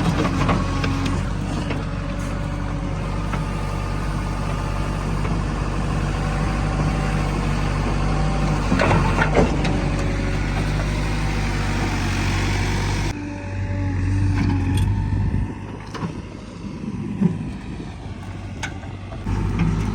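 JCB 3DX backhoe loader's diesel engine running steadily, with a few sharp metallic knocks. About thirteen seconds in the sound drops suddenly and turns quieter and rougher, then comes back loud near the end.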